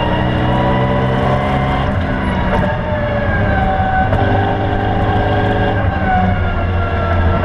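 BMW E92 M3's 4.0-litre V8 running hard on track, heard from inside the cabin, with a brief dip in level about three seconds in and the engine note then easing slightly lower in pitch.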